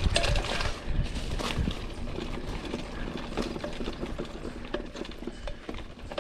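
Mountain bike ridden over a rough, rocky trail: irregular rattling and knocking from the bike and tyres, with a heavy low rumble in the first second.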